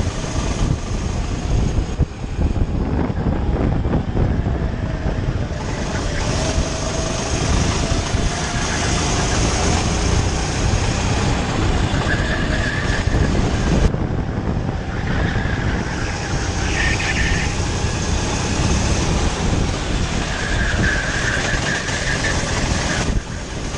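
Go-kart engine running hard as the kart laps the circuit, heard from on board with the rush of wind and the other karts around it, a few short higher squeals coming and going.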